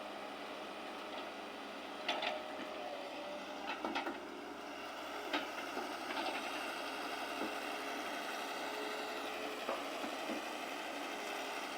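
Excavator running steadily, with several sharp knocks from its working parts scattered through the sound.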